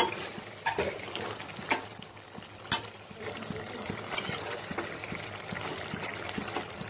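A metal spoon stirring chicken in thin, bubbling gravy in a pan, with a wet sloshing and a few sharp clicks of the spoon against the pan in the first three seconds.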